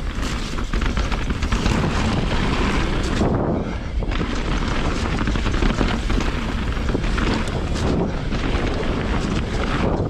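Wind rushing over the action camera's microphone, mixed with the tyre noise and constant knocks and rattles of a 2020 Rocky Mountain Instinct BC full-suspension mountain bike riding down rough, wet trail. The noise eases briefly about three and a half seconds in.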